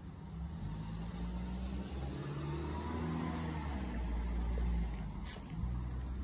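A car passing on the road alongside, its engine and tyre rumble building to its loudest about five seconds in and then easing off.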